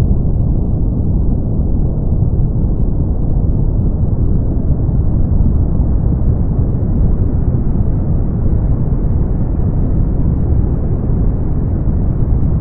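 Brown noise: a steady, deep, even rushing sound, heaviest in the bass and with no high hiss.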